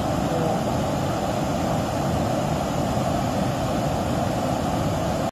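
Rain-swollen stream water rushing steadily, an even hiss and rumble that cuts off suddenly at the end.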